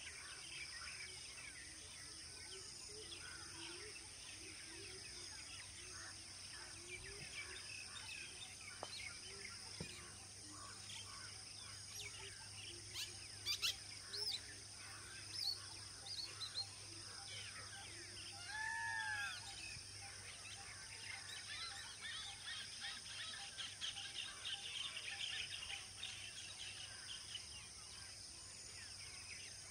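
Outdoor ambience of many birds chirping, with a few sharp clicks around the middle and one clearer arched call about two-thirds of the way through, over a steady high-pitched hiss.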